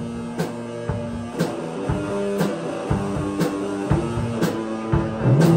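Live rock band playing an instrumental passage: semi-hollow-body electric guitar, electric bass and drum kit, with a sharp drum hit about once a second. The band gets louder near the end.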